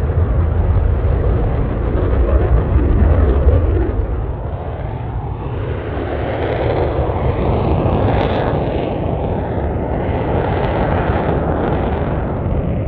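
F-22 Raptor's twin Pratt & Whitney F119 afterburning turbofans in a flying display pass, afterburners lit: a loud jet noise, a heavy low rumble for the first few seconds, then a harsher, higher noise that peaks around the middle and eases off near the end.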